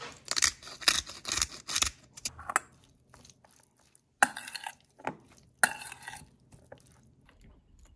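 A metal spoon stirring salad in a stainless steel bowl: a busy run of scraping and clinking for about two and a half seconds, then a few sharp clinks of spoon on bowl.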